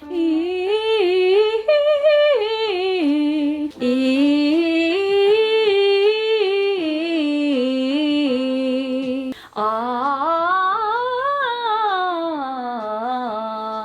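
A woman humming a slow, wordless melody with no accompaniment, in three long phrases of held, wavering notes.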